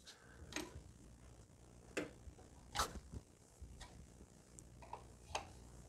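A handful of faint, irregular metallic clicks from a 14 mm wrench loosening the nut of a high-pressure diesel fuel line at an injector of a Mercedes OM646 engine. The loudest click comes about three seconds in.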